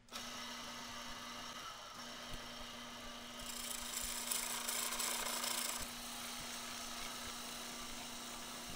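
Wood lathe starting up and running with a steady motor hum as it spins a wooden handle blank. From about three and a half to six seconds in, a turning tool cuts the end of the blank, adding a louder scraping hiss.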